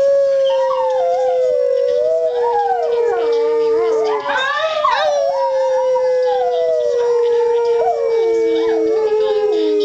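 A yellow Labrador-type dog howling in long drawn-out howls that waver and glide up and down in pitch. Underneath runs a second long, steady note that sinks slowly and breaks once, about four seconds in.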